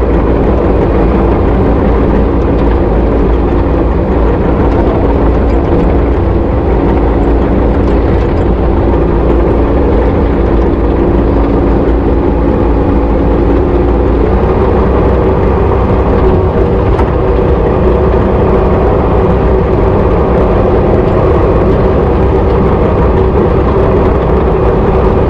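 Kubota KX080-3 excavator's diesel engine and hydraulics running steadily, heard from inside the cab. Its steady hum shifts in pitch about halfway through.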